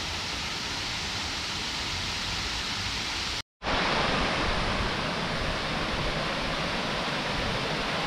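Steady rush of water falling over a small, largely artificial waterfall. It cuts out for a split second about three and a half seconds in, then carries on slightly louder.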